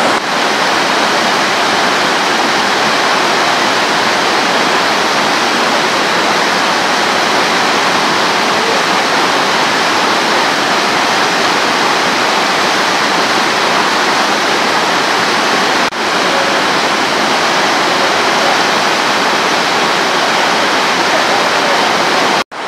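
Floodwater from a steep gully gushing out of a stone-walled opening over a concrete channel edge onto rocks: a loud, steady rush of water.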